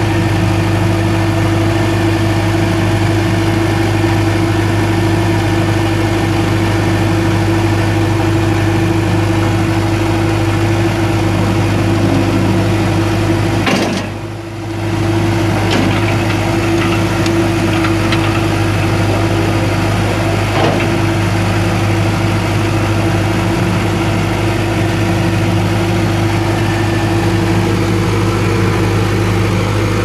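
John Deere 4045T four-cylinder turbo diesel engine of a backhoe idling steadily, its level dipping briefly about halfway through.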